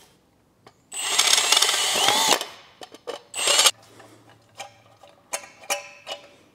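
Cordless drill boring a 4.2 mm hole through an aluminium plate: one run of about a second and a half, its whine rising in pitch before it stops, then a short second burst. After that come faint clicks and scrapes as an M5 tap in a T-handle wrench starts cutting threads in the hole by hand.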